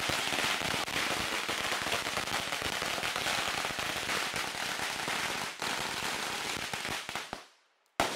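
Firecrackers going off on the ground in a dense, rapid crackle of small pops, which stops about seven and a half seconds in. A single sharp crack follows near the end.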